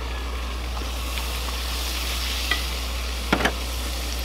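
Food frying in oil in a skillet on a propane camp stove, a steady sizzle. A sharp click about two and a half seconds in and a quick pair of clicks shortly after.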